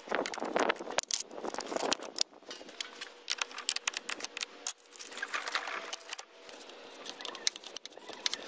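Metal hand tools clinking and rattling as they are handled: a run of sharp clicks and small jangles, irregular, with quieter gaps between clusters.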